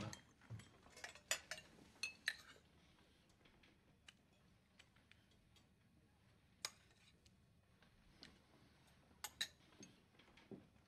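Metal dessert fork clinking against a china plate: a handful of short, sharp clinks, a few in the first couple of seconds, one near seven seconds and a pair after nine seconds, with near silence in between.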